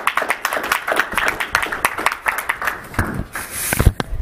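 A small audience applauding: scattered hand claps that thin out after about three seconds, followed near the end by a rustle and a heavy thump.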